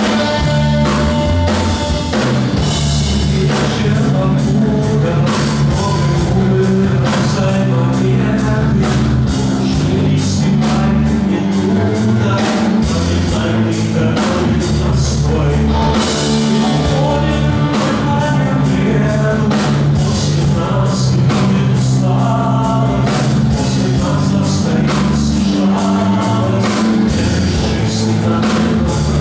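A rock song playing, with a male or female voice singing over drums, bass and electric guitar and a steady beat.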